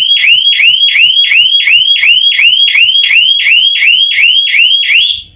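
Electronic siren of a wireless PIR motion-sensor alarm, set off by motion in front of the sensor: a loud, fast repeating rising whoop, about four sweeps a second, that cuts off suddenly near the end.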